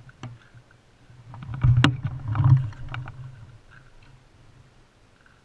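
Mountain bike with a handlebar-mounted action camera being handled: a few light clicks, then two dull thumps with a rattle about two seconds in, fading out.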